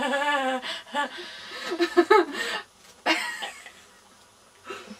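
Young women laughing in short bursts for about three seconds.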